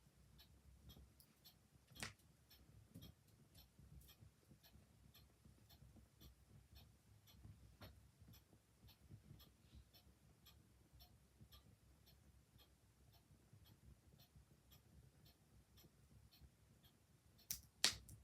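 Clock ticking quietly about twice a second over a soft, low crackle of a wood fire, with a few sharper pops from the fire, the loudest two close together near the end.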